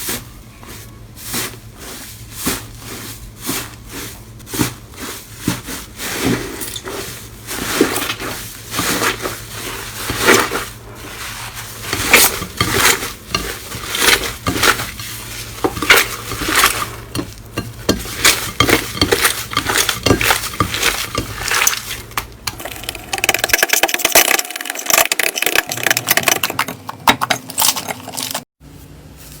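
Slime being squeezed and worked by hand, making a run of sticky pops and clicks, with denser, continuous crackling for a few seconds near the end.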